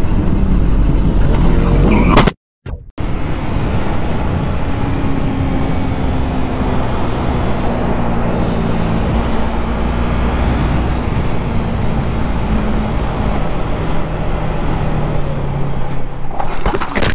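Motorcycle engine running under steady throttle with wind rushing over the bike-mounted camera, the engine pitch shifting gently. The sound cuts out completely for about half a second a little over two seconds in, then picks up again.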